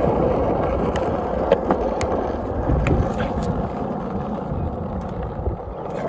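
Skateboard wheels rolling over rough, cracked asphalt: a steady rumble, with a few sharp clicks in the first couple of seconds.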